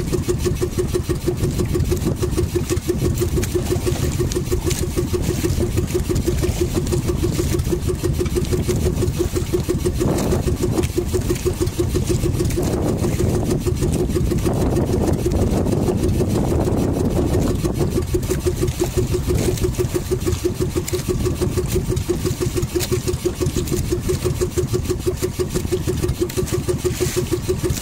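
Small engine of an outrigger fishing boat running steadily with a fast, even putter.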